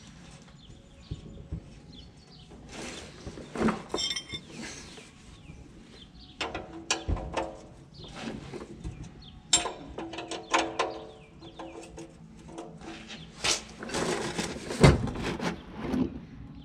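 Intermittent metallic clanks, clicks and ratcheting of hand tools working on the tractor during an oil change, with birds chirping.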